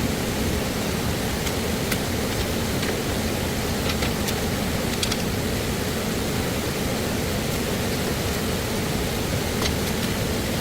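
Steady rush of flowing stream water, with a few light clicks scattered through it.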